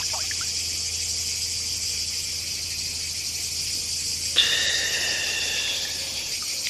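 Cicadas shrilling in a steady, high, continuous chorus. About four seconds in, a sudden knock and a brief rush of noise cut in over it for a second or two.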